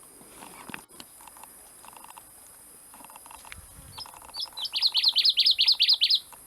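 A bird calling: a few scattered notes, then a quick run of about a dozen sharp, high chirps that stops suddenly.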